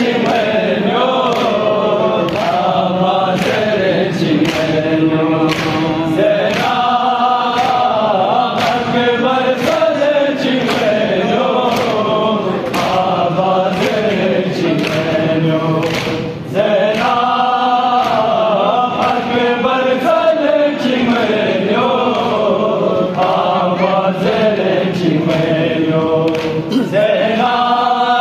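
A group of men chanting a noha (mourning elegy) in unison, with a steady chest-beating (matam) beat a little over once a second. The voices pause briefly about two-thirds of the way through.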